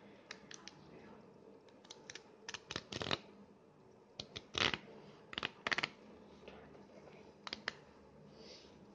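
Perforated tear strip being pulled open along a thin cardboard box, tearing in several short rips with pauses between.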